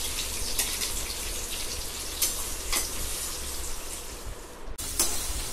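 Sliced onions and whole spices sizzling steadily in hot oil in a kadai, with a few sharp clicks of a steel perforated ladle against the pan as they are stirred. The sizzle breaks off for a moment near the end and starts again.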